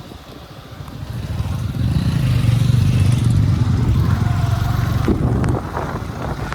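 A motor vehicle's engine running close by, growing louder about a second in and easing slightly near the end.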